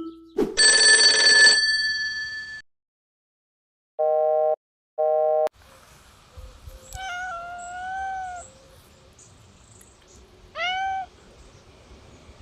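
A cat meowing twice, first one long drawn-out meow and then a short one. Before the meows come a loud bell-like chime that rings on for about two seconds and two short electronic beeps.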